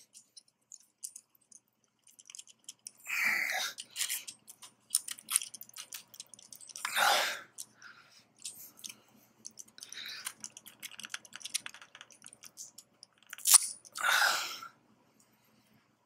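Stuck-on rubber bumper feet being pried and peeled off the underside of a mechanical keyboard: scattered small clicks and crunching, with a few louder rasps. The adhesive is holding on hard.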